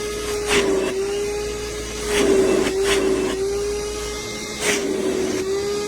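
DEWALT 20V MAX cordless wet-dry vacuum (DCV580H) running with a steady, slightly wavering motor whine, with repeated brief surges of rushing air at the nozzle as it works to suck something up.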